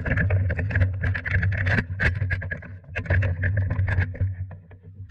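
A motor running steadily with a low hum, with many irregular sharp clicks and rattles over it.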